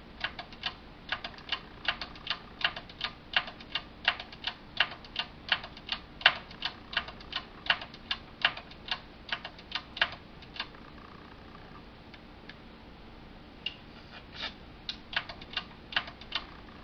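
Rotary selector switch on a Marantz 3650 preamp (the phono MM/MC selector) clicked back and forth over and over, about two to three clicks a second, pausing briefly before a few more clicks. The switch is being worked to spread freshly sprayed contact cleaner over its corroded contacts, to cure crackling in the audio.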